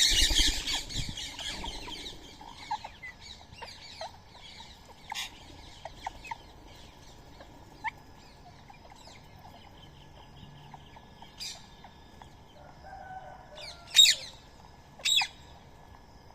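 Birds chirping and squawking, with a flurry of wing flapping and harsh calls at the start. Scattered short chirps follow, then two loud harsh squawks near the end.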